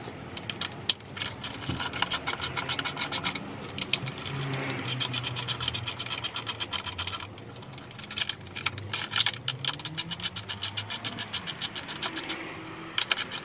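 A hand ratchet clicking rapidly, about six clicks a second, in runs of a few seconds with short pauses. The clicking comes as 10 mm bolts on an outboard motor's pull-start cowling are turned out.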